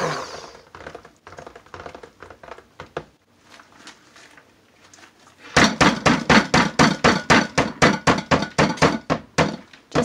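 A fast, even run of sharp plastic knocks, about four or five a second, starts about halfway in. It comes from a switched-off immersion blender's head being worked through thick soap batter and knocking against the plastic mixing bowl. Before that there are only a few faint clicks, after the blender motor stops at the start.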